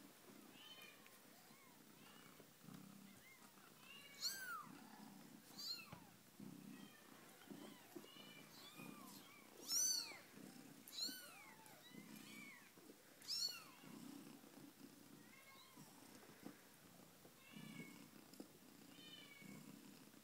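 Newborn Siberian kittens squeaking and mewing in short high-pitched calls, the loudest about ten seconds in, over a low cat purr that swells and fades about once a second.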